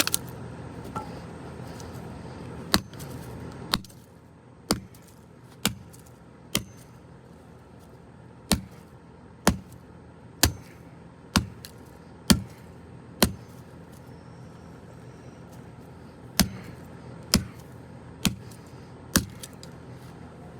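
A golf club striking a plastic walkie-talkie again and again: about sixteen sharp hits, roughly one a second, in runs with short pauses between them.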